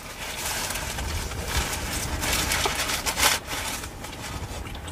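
Close-up eating sounds: biting into and chewing a birria smash burger and a shrimp torta, with paper-wrapper rustle, several louder moments, the loudest a little over three seconds in. A low steady rumble runs underneath.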